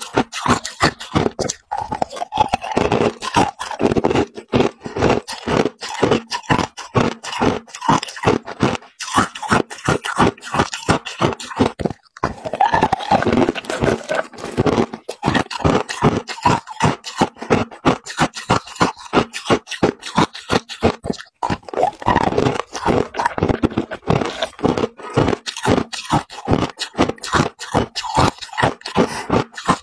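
A person biting and chewing hard ice cubes: a rapid, steady run of crunches, about three a second.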